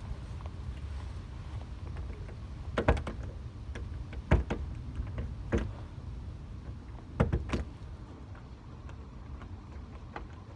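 Tools working at a door lock: about five sharp clicks and knocks, spaced a second or so apart, over a steady low rumble.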